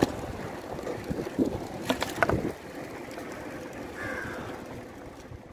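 Wind buffeting the microphone over the tyre and road noise of a bicycle being ridden, with a few sharp rattling knocks about two seconds in.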